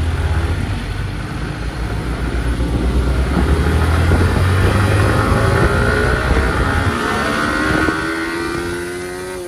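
Motorcycle engine running under way, heard from the rider's seat, with wind rushing over the microphone. The engine note climbs in pitch through the second half as the bike speeds up, then the sound drops off near the end.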